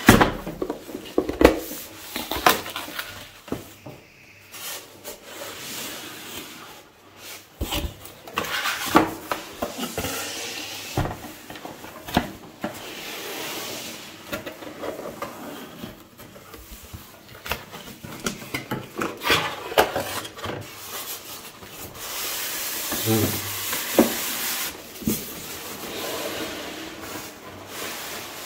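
Paperboard packaging handled with gloved hands: cardboard flaps rubbing, scraping and tapping, with many short sharp clicks scattered through. Near the end a longer, steadier scraping as a polystyrene foam insert is worked out of the box.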